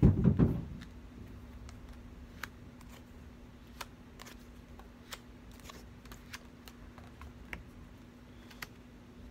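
Oracle cards being handled and laid out on a cloth-covered table: scattered light clicks and card snaps. A few dull thumps come in the first half second, and a faint steady hum sits underneath.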